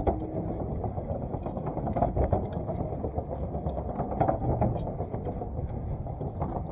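Wind noise on the microphone: a steady low rumble, with scattered light knocks and clicks.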